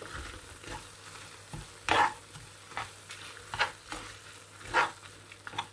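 A wooden spatula stirring and scraping a mix of cooked tomatoes, chillies and coriander in a non-stick frying pan, in a few irregular strokes. The strongest strokes come about two seconds in and again near the five-second mark, over the faint sizzle of the pan cooking.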